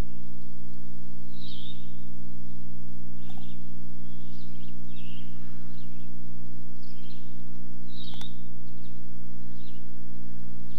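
Short high bird chirps, roughly one a second, over a loud steady low hum, with one sharp click about eight seconds in.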